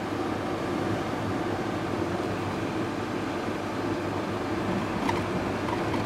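Steady engine and road noise of a moving vehicle, with a constant low hum and no change in speed.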